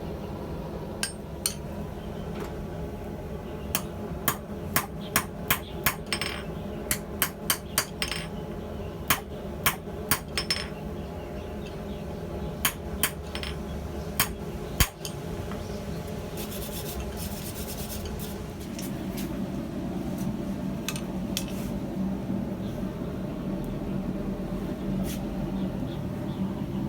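Blacksmith's hammer striking steel on an anvil: about twenty sharp strikes in irregular runs over the first fifteen seconds. Under them runs a steady rumble that grows louder in the last third.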